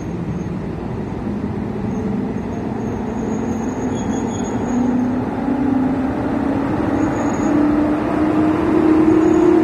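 PKP EP07 electric locomotive pulling a passenger train away from a station stop: a steady rumble with a whine rising slowly in pitch as it gathers speed, growing louder as it passes.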